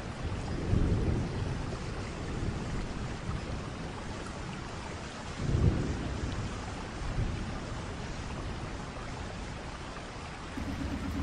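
Wind buffeting the microphone: a steady rushing noise with low rumbling gusts about a second in and again just past halfway. Near the end a steady low hum starts.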